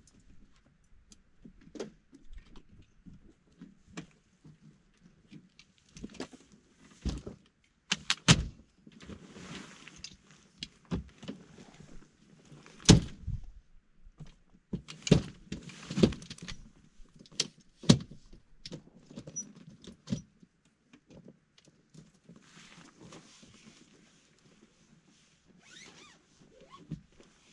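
Scattered knocks, clunks and clicks with patches of fabric rustling: a fold-out rooftop tent on a pickup truck being opened and its ladder set up. The heaviest knocks fall in the middle.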